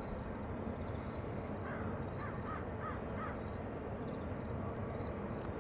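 A crow-like bird cawing in a quick series of about five calls in the middle, over the steady low rumble of a distant passing freight train.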